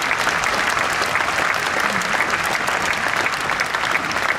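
Large concert audience applauding steadily with dense, even clapping, welcoming a choir onto the stage.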